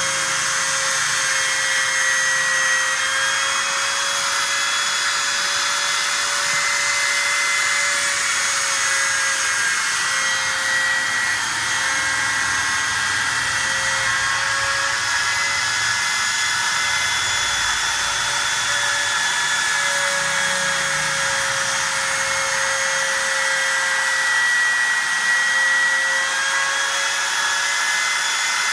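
Automatic aluminium letter-cutting machine running steadily, a power-tool whine with a slightly wavering tone and a strong high hiss.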